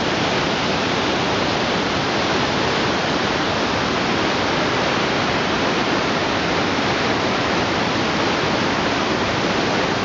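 Large cascading waterfall: a steady, loud rush of falling and tumbling water, unchanging throughout.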